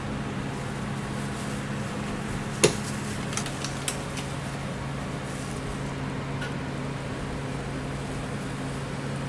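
Steady low hum of kitchen equipment, with a sharp metallic clack about two and a half seconds in and two lighter clicks soon after, as the metal waffle iron and steel batter pitcher are handled.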